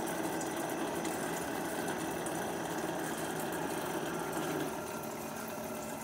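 Countertop blender running on low speed, mixing egg yolks, lemon juice and seasoning into a hollandaise base: a steady motor hum that eases slightly in level about three quarters of the way through.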